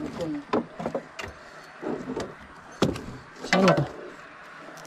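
Irregular knocks and scrapes, with a few short squeaky rings, from a fishing rod and spinning reel being handled in a wooden boat while a hooked fish is brought in; the loudest clatter comes about three and a half seconds in.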